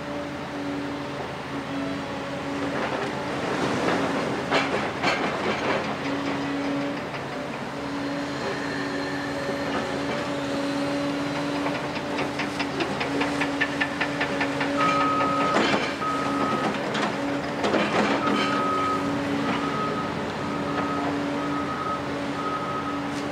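Doosan DX255LC-5 excavator's six-cylinder diesel running with a steady hydraulic whine while its grapple handles demolition rubble, with bursts of rubble clattering and crashing. About fifteen seconds in, a reversing alarm starts beeping, roughly once a second.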